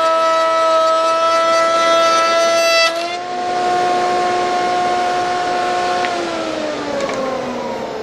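Router in a Festool CMS router table running at high speed with a steady high whine, cutting a rabbet. About three seconds in the pitch steps up slightly, and about six seconds in the motor is switched off and the whine falls steadily as the bit spins down.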